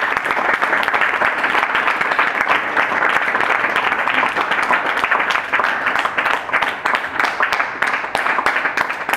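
Audience applauding: many hands clapping densely, thinning a little toward the end.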